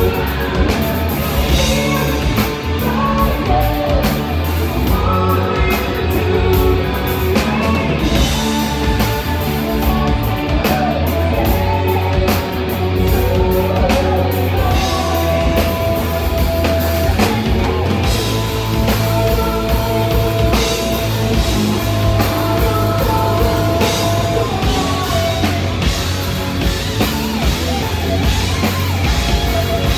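Heavy metal band playing live and loud: distorted electric guitars over a pounding drum kit, with a woman singing lead vocals.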